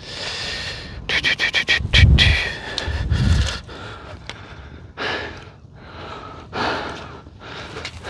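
A man breathing hard, with a quick run of clicks and two dull thumps in the first half: footsteps squelching in thick mud.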